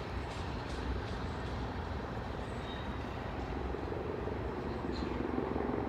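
Freight train rolling past, a steady low rumble with rail-joint clicks in the first second, then a droning hum that builds through the second half.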